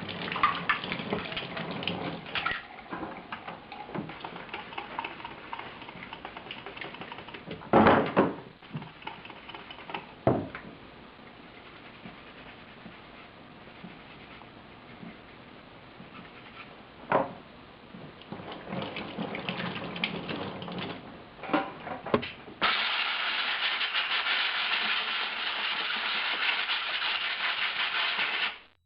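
Small metal engine parts being handled and cleaned on a workbench, with a few sharp knocks and clinks along the way. Near the end a steady hiss runs for about six seconds and cuts off suddenly.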